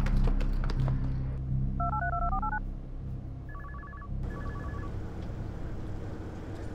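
Mobile phone being dialled: a quick run of about eight touch-tone keypad beeps, followed by two short trilling tone bursts, over a steady low hum.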